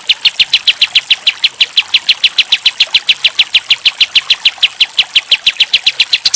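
Kapas tembak (olive-winged bulbul) singing a fast, even run of short, sharp high notes, about seven or eight a second, each dropping slightly in pitch.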